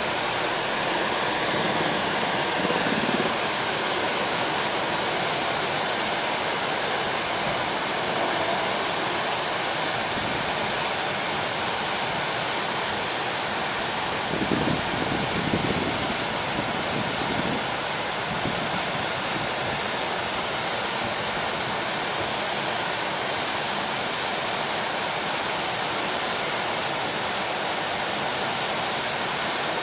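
Glacier-fed mountain river rushing over a boulder-strewn bed: a steady, even hiss of white water, with a few brief low swells about halfway through.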